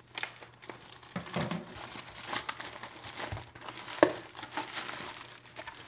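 Plastic courier mailer and inflated air-column bubble wrap crinkling and rustling as they are cut open and pulled apart by hand, with a sharp click about four seconds in.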